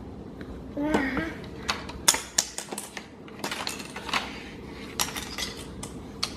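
Plastic alphabet magnets clicking and clattering against a refrigerator door and against each other as they are handled, an irregular string of sharp clicks.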